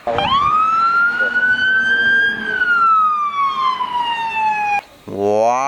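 Siren of a fire emergency Jeep sounding one wail: it rises for about two seconds, slides slowly back down, then cuts off suddenly about five seconds in.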